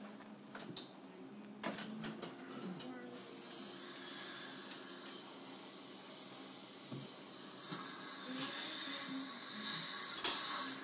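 Dental equipment at the patient's mouth hissing steadily, starting about three seconds in and growing a little louder near the end, with a few light clicks before it.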